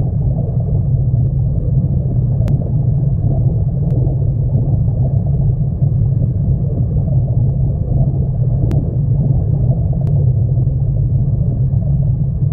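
A deep, steady rumble, with a few faint ticks over it.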